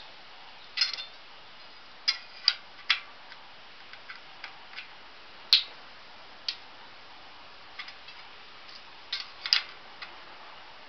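Sharp, irregular metallic clicks, a dozen or so spread out with uneven gaps, from a spoke wrench turning Shimano spoke nipples a fraction of a turn to tighten the spokes while truing a wheel.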